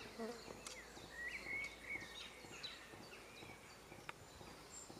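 Faint countryside ambience with small birds chirping and one clearer whistled call that rises and holds briefly, and a single sharp tick near the end.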